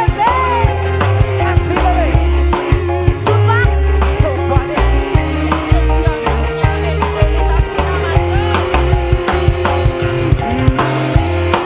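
Live dangdut band playing loudly. A drum kit and bass keep a steady heavy beat under a melody line that bends in pitch.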